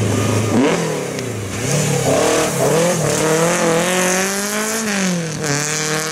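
Mk1 Volkswagen Golf rally car's engine revving hard under acceleration. The pitch climbs, drops briefly about a second in and again near the end as it shifts gear, then climbs again.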